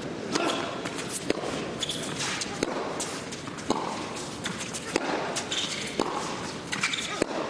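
Tennis rally on an indoor hard court: racket strikes on the ball about once a second, with the players' shoes squeaking and footsteps between shots.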